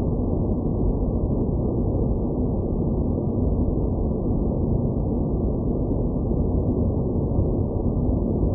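Steady deep rumbling noise with no high end, a synthetic space ambience effect, unchanging throughout.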